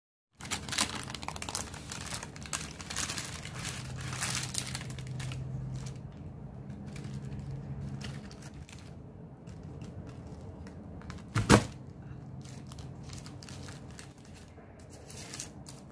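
A knife cutting through hard sesame-and-peanut brittle on a parchment-lined plastic cutting board: dense crackling and crunching with paper crinkling, and one sharp crack about two-thirds of the way through.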